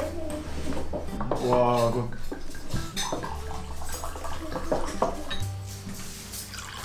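Plates, glass goblets and cutlery clinking and knocking as a dinner table is set, with background music.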